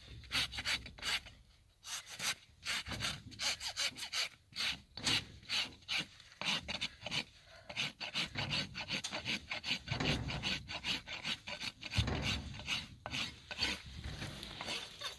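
Hand rasp filing the sole and wall of a bare horse hoof in a run of quick, rough back-and-forth strokes, with a short pause about one and a half seconds in.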